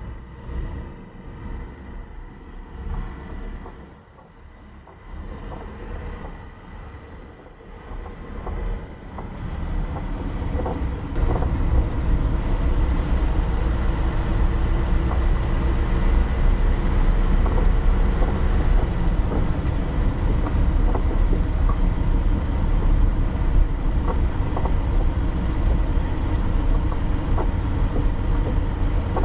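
Car driving, with a steady low rumble of engine and tyres on the road. About a third of the way in, it jumps abruptly to a louder, fuller rumble that holds steady.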